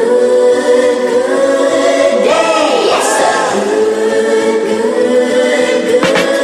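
Music: several voices singing long held notes in harmony, choir-like, with no bass under them.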